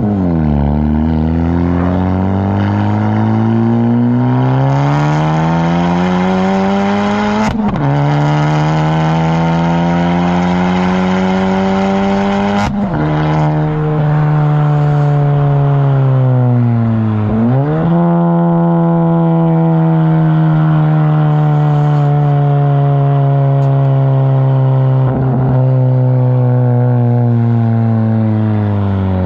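Honda Civic Si's turbocharged 1.5-litre four-cylinder running through a straight-through front pipe, downpipe and race-muffler catback exhaust, accelerating hard. The engine note climbs steadily, drops suddenly at upshifts about 7.5 and 12.5 seconds in with a short crack at each, sags and dips again at a further shift, then holds a steady drone that eases slowly.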